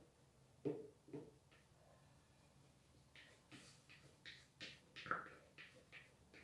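Faint scraping and soft knocks of a utensil inside a plastic mixing bowl as beaten egg whites are scraped out into another bowl: two duller knocks about a second in, then a run of short scrapes in the second half.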